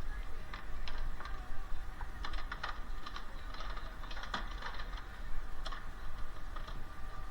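Bundle of electrical wires being handled and gathered together by hand, with irregular light plastic clicks and rattles over a steady low hum.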